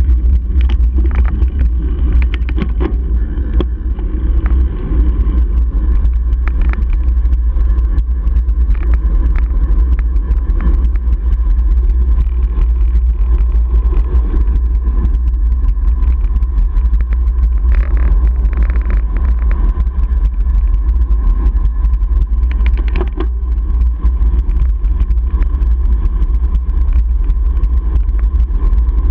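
Wind rushing over the microphone of a bicycle-mounted camera on a fast downhill ride: a loud, steady low rumble.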